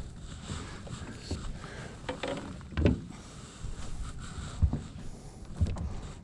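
Handling noise of an angler working his line on a floating plastic jetty: a few dull, low knocks, the loudest about three seconds in, over a low rumbling background.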